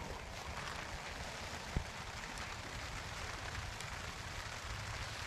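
Steady rain falling, an even hiss, with one small sharp click about two seconds in.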